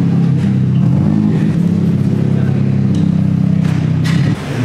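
Car engine running steadily with a low drone whose pitch shifts slightly now and then, dipping briefly near the end.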